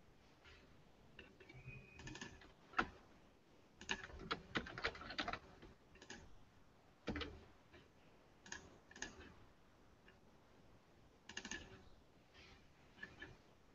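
Faint computer keyboard typing in short irregular bursts, with a few single sharp clicks in between.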